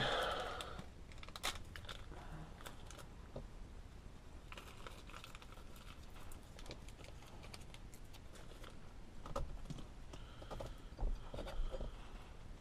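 Scattered small clicks, taps and rustling of parts being handled while a steering hub and wheel are offered up for bolting, with a few sharper knocks near the end.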